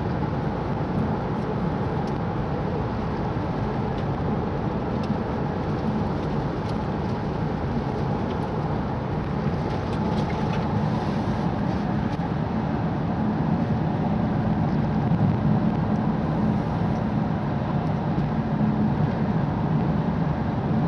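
Car driving on a wet road, heard from inside the cabin: a steady low hum of engine and tyres, with a few faint ticks.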